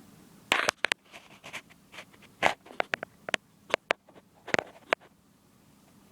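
A series of sharp clicks and taps, about a dozen, irregularly spaced: small found objects being handled and set down on a hard surface.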